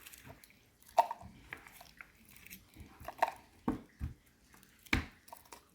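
Slime being squeezed and pulled by hand, giving irregular wet squelches and sharp sticky pops.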